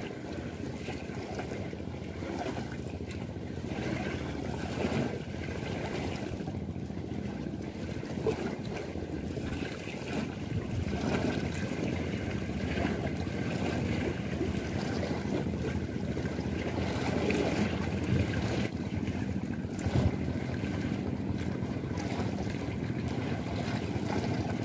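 Turbulent water churning and splashing against the foot of a concrete dam wall, with wind rumbling on the microphone and a few brief louder surges.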